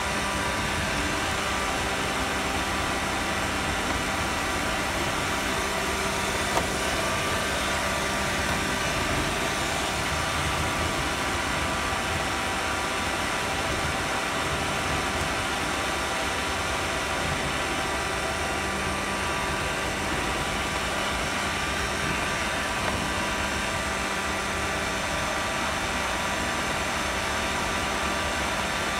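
Roomba robot vacuum running, heard from a phone riding on top of it: a steady motor-and-fan whir with several constant whining tones, and a few faint ticks.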